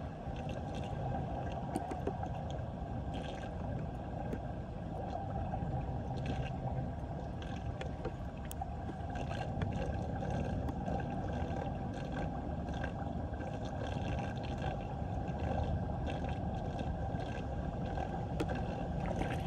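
Floodwater draining down a cleared storm drain through a whirlpool: a steady rushing gurgle with faint scattered splashy ticks. The flow shows the drain is now unclogged.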